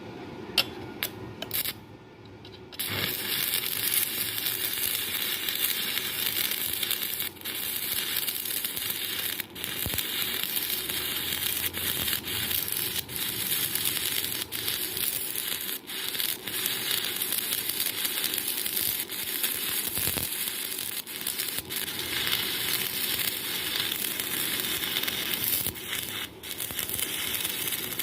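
A few sharp clicks, then from about three seconds in a stick-welding arc on a 2 mm electrode, crackling and sizzling steadily. It drops out briefly several times.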